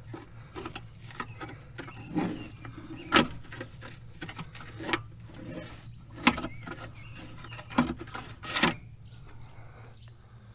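Hand tools clicking and knocking against a compact track loader's hydraulic fittings, with four sharper knocks among lighter clicks; the knocking stops about nine seconds in.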